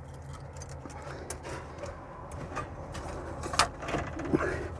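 Scattered light clicks and knocks of a metal retaining strap and air filter canister being handled and pushed into place, with one sharper click about three and a half seconds in. A steady low hum runs underneath.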